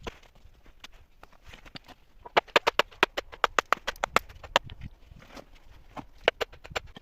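A rapid series of sharp knocks, about five a second for around two seconds, then a few more near the end.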